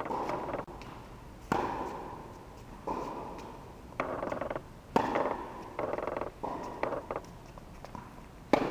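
Tennis balls being struck by rackets, a string of sharp pops a second or so apart, each followed by the long echo of a large indoor tennis hall.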